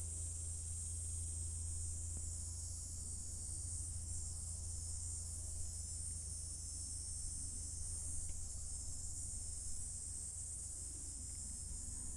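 Insects buzzing steadily in a high, even chorus, over a constant low rumble.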